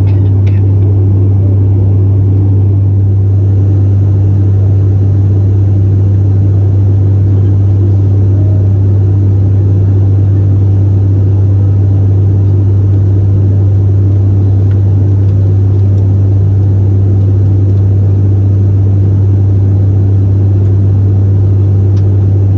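Steady drone of an ATR 72-500 turboprop in cruise, heard inside the cabin near the propeller: a loud, even, low propeller hum over a rumble from the Pratt & Whitney PW127 engines and the airflow.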